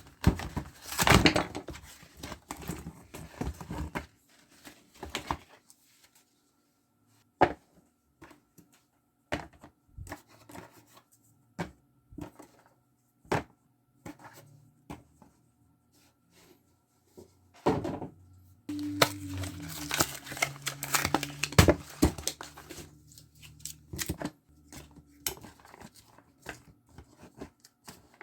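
Containers and packaging being handled while restocking a mini fridge: scattered clicks, knocks and crinkles, with a busier stretch of rustling and clatter about two-thirds of the way in.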